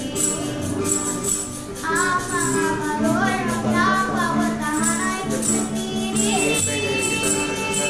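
A children's group singing a Christmas carol together, accompanied by a tambourine shaken in a steady beat and acoustic guitar.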